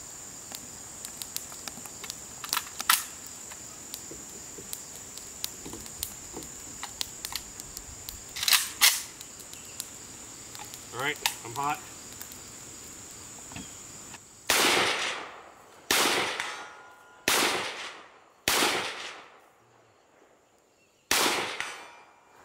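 Semi-automatic rifle fired in single shots: five loud cracks at uneven spacing, each trailing off in an echo, starting about two-thirds of the way in.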